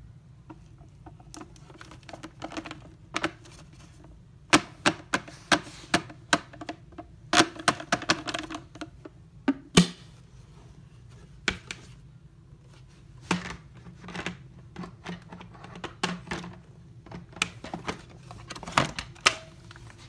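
Irregular clicks and knocks of things being handled, several a second at their busiest, with no vacuum motor running.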